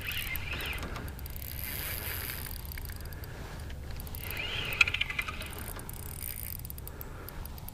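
Spinning reel being cranked to bring in a hooked bass, a faint whirring of its gears in two short spells that rise and fall in pitch, the second ending in a few clicks.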